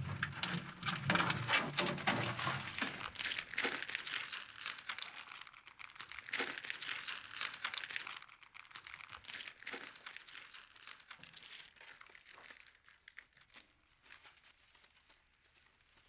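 Packaging crinkling and rustling as it is handled and pushed into a wall air vent, thinning out and dying away over the last few seconds.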